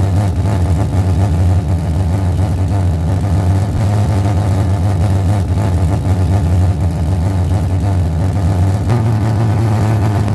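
Glass-jar pulse jet burning alcohol: steady pulse combustion through the small hole in the lid makes a loud, continuous low buzz.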